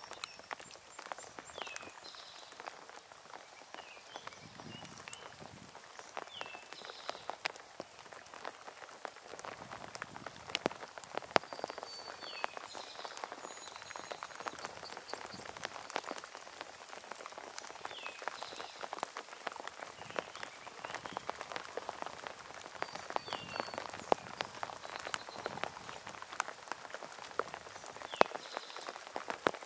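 Steady rain, with many raindrops ticking sharply on close surfaces. A bird's short call repeats faintly every five or six seconds.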